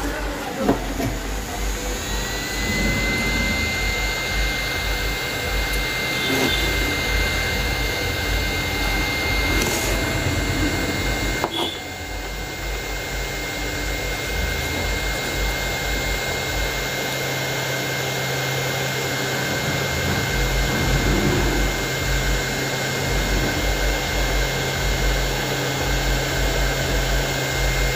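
SMD hot air rework gun blowing steadily, with a high whine that comes in about two seconds in and holds, as it heats a burnt voltage regulator IC to desolder it from a satellite receiver's circuit board. A brief click near the middle.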